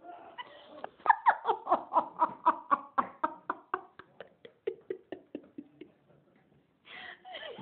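Hearty laughter: a long run of rapid 'ha-ha-ha' pulses, about four a second, that falls in pitch and fades until it trails off about six seconds in. A fresh burst of laughing starts near the end.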